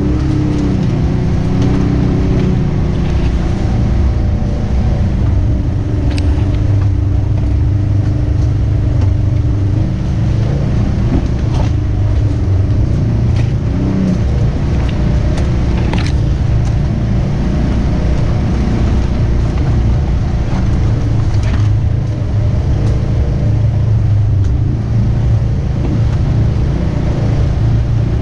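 Polaris RZR side-by-side engine running steadily while driving, a constant drone over a deep rumble, with a few sharp clicks along the way.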